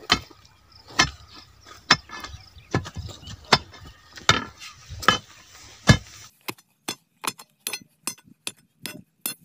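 Upturned iron crowbar ramming packing stones and soil into a fence-post hole, a hard knock about once a second, then lighter, quicker taps over the last few seconds. The tamping wedges the stones around the wooden post to make it firm.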